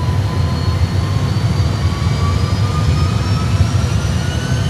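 Airbus A320 flight simulator's twin jet engine sound spooling up from idle as the thrust levers are set to about 50% N1 before takeoff. A steady low rumble with a thin whine that slowly rises in pitch.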